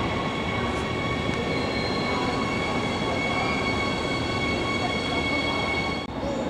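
RRX Siemens Desiro HC electric multiple unit moving slowly through the station, rolling noise with a steady high-pitched whine. The sound breaks off briefly near the end.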